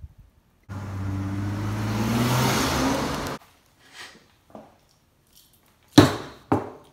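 A car engine accelerating, its pitch rising for about three seconds before cutting off suddenly. About six seconds in come two sharp knocks half a second apart.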